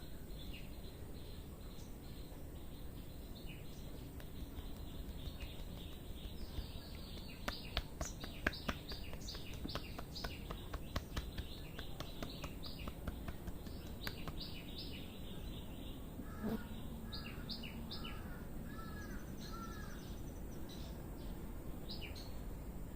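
A quick run of sharp crackling snaps for several seconds, starting about a third of the way in, typical of hair cracking: hair twisted and tugged between the masseur's fingers during an oil head massage. Birds chirp throughout, and one calls a few repeated notes later on.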